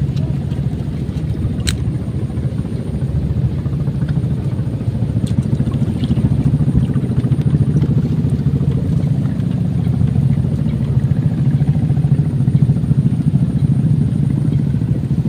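A motor engine running steadily with a low, even drone, with a single sharp click about two seconds in.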